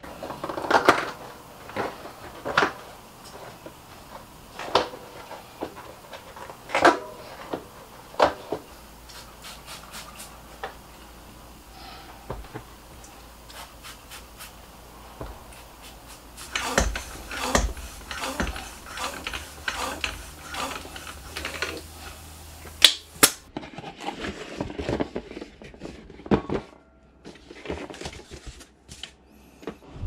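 Knobby mountain-bike tyre being worked onto a spoked wheel rim by hand: scattered sharp knocks and rubbing of rubber on the rim, then a run of quick spray-bottle squirts over the tyre about halfway through.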